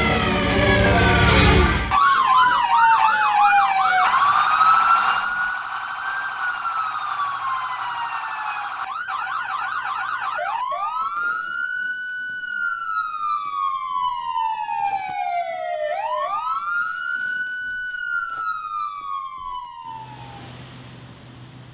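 Police siren switching between a fast warbling yelp and a slow wail that rises and falls every four to five seconds, dying away near the end. Music plays for the first two seconds and then cuts off.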